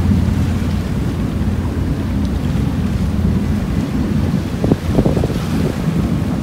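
Wind buffeting the microphone on an open ferry deck over a steady low rumble from the ferry and water rushing past the hull, with a couple of stronger gusts about five seconds in.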